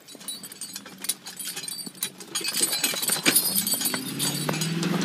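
Team of draft horses walking on icy, snow-covered ground: hooves knocking and scraping while the metal rings and buckles of their harness clink and jingle. The clatter gets busier and louder after about two seconds.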